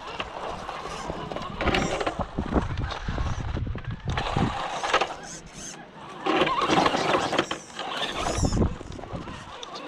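Remo Hobby RC crawler's small electric motor and geartrain whining in several short bursts of throttle as the truck crawls up a rock step, with uneven wind rumble on the microphone.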